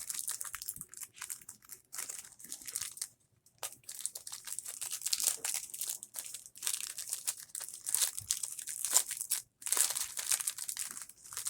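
Plastic wrapper of a Pokémon card pack crinkling and tearing as it is opened and handled, in irregular bursts with two short pauses.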